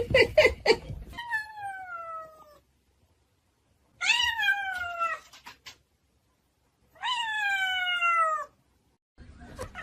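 A domestic cat meowing three times, each meow long and drawn out, falling in pitch, with a few seconds' pause between them. A short burst of noise comes just before the first meow.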